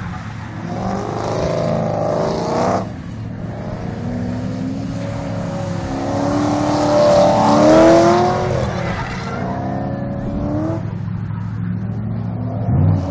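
Drift car's engine revving up and down through repeated throttle blips as it slides sideways, with its tyres screeching, loudest about eight seconds in.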